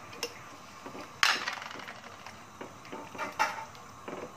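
A plastic bowl knocked against a slotted spatula and a stainless steel frying pan, then the spatula stirring and scraping through coconut milk in the pan: scattered clacks and scrapes, the loudest a sharp clack about a second in.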